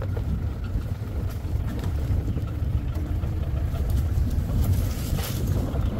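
Safari jeep's engine running as it drives along a forest track, a steady low rumble with road and wind noise.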